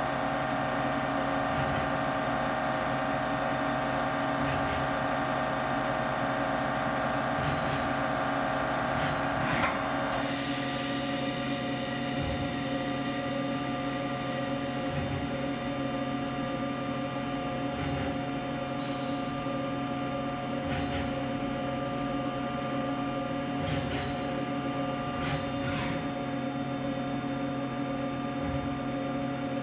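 Haas OM-2A CNC vertical mill running under power: a steady machine hum with several steady tones, including a high whine, from its high-speed spindle and drives. About ten seconds in the upper tones shift to a new set, and short low thuds recur every few seconds.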